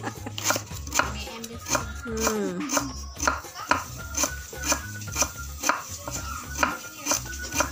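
Large kitchen knife slicing a lemongrass stalk thinly on a wooden chopping board: a steady run of knife strikes on the board, about two a second.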